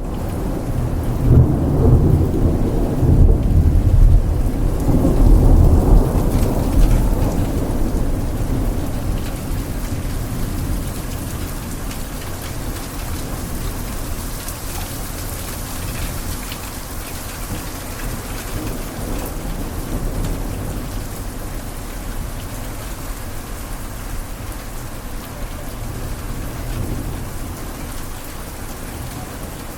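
Thunderstorm: heavy rain falling steadily, with a long, loud low rumble of thunder over the first several seconds that fades into the rain.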